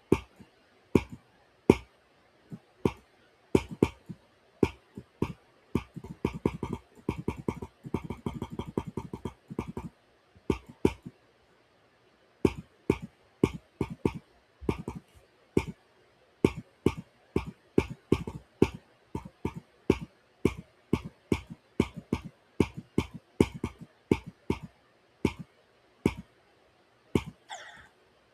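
Loud, sharp mouth clicks made with the tongue, snapping out one after another at an uneven pace, with a fast run of clicks about a third of the way through.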